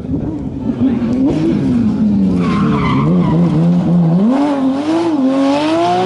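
Porsche 997 GT3 rally car's flat-six engine at racing revs. The engine pitch falls as the car slows for a corner about halfway through, then climbs again with short dips at each upshift as it accelerates away, with tyres sliding on the loose, dusty road.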